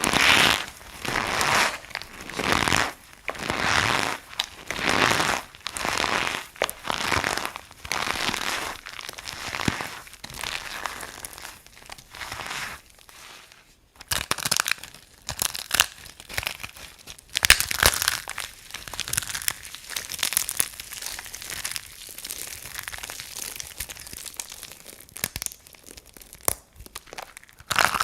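Dry bar soap being crunched, with crisp crunches about once a second for the first half. After a short pause near the middle come sharper, faster crackling crunches.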